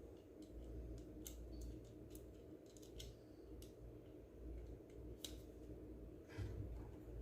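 Faint, irregular clicks and taps of a screwdriver and small plastic parts as screws are fitted into a blender's housing, over a steady low hum.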